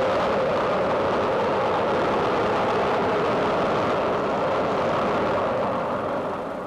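Liquid-fuelled V-2 rocket engine firing during lift-off and climb: a steady, rushing roar that eases off slightly near the end.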